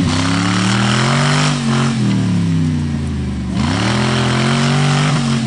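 V8 engine of a Suzuki off-roader revving hard under load as it claws up a steep bank. The note climbs and holds high, drops off about three and a half seconds in, then climbs again.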